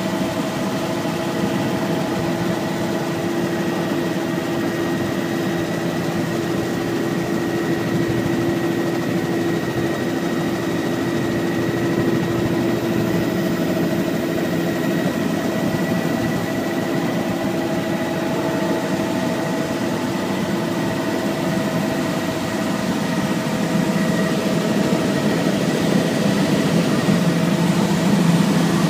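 Steady engine and airframe drone of a light aircraft in flight, heard from inside the cabin, with a constant hum and a thin whine over it; it grows slightly louder near the end.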